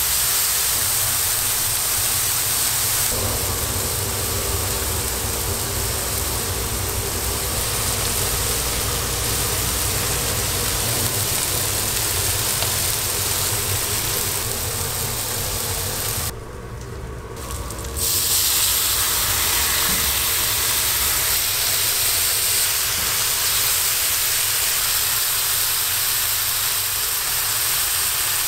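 Beef burger patties and bacon strips sizzling on a flat-top griddle, a steady hiss of frying fat. The sizzle drops away briefly a little past the middle, then carries on.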